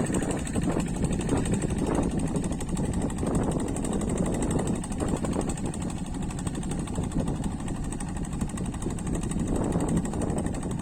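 Kubota diesel engine of a walking hand tractor running steadily.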